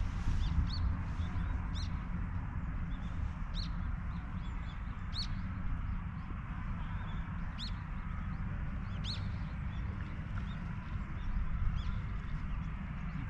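Small birds chirping: short, sharp high calls, singly or in quick pairs, every second or two, over a steady low rumble.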